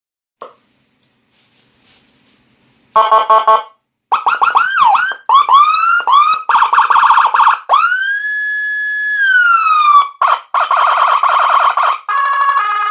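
Electronic siren, a Whelen HHS-style siren IC through a Senken YD100i siren speaker, stepping through its tones. About three seconds in comes a short pulsed horn tone, then quick rising yelps and a fast warble, then a long wail that climbs, holds and falls, and near the end a fast warble and a stepped two-tone pattern.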